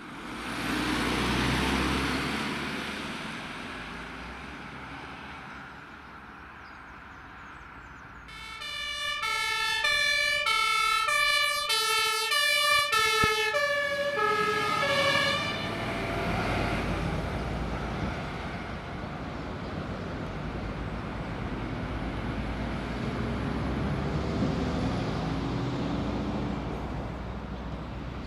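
An emergency vehicle drives past, then a German two-tone siren (Martinshorn) sounds for about seven seconds, alternating between a high and a low pitch, as a fire engine approaches; afterwards the heavy fire engine's diesel engine and tyres are heard passing.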